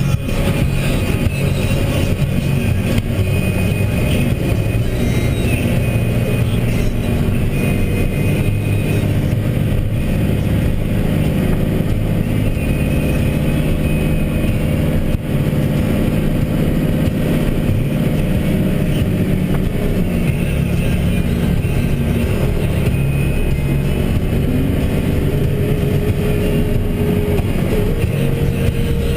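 2012 Mack Granite plow truck's diesel engine running steadily under load, heard from inside the cab.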